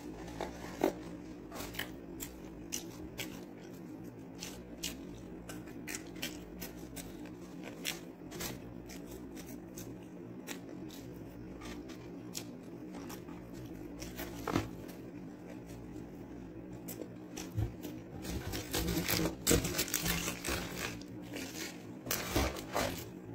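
A person eating French fries close to the microphone: chewing, with many small clicks and smacks and the rustle of paper food packaging being handled. The sounds get busier and louder in the last few seconds.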